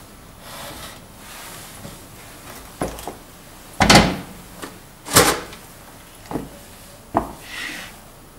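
A series of sharp knocks and bangs on a door, the loudest two about four and five seconds in. The owner then puts the noise down to the wind.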